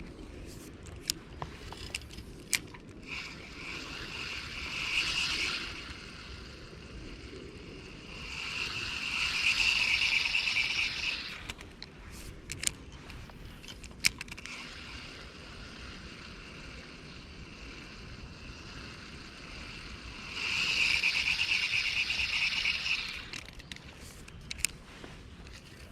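Ultralight spinning reel being cranked in three spells of a few seconds each, retrieving a grub lure, with scattered sharp clicks between, over the steady hiss of running creek water.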